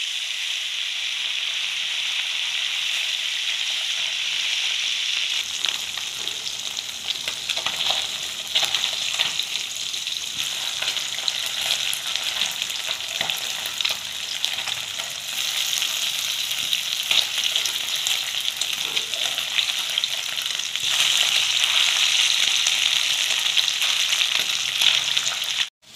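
Small boroli (barilius) fish sizzling steadily as they shallow-fry in hot mustard oil in a metal wok, with crackling pops and the occasional scrape of a spatula turning them. The sizzle grows louder in spells and cuts off abruptly near the end.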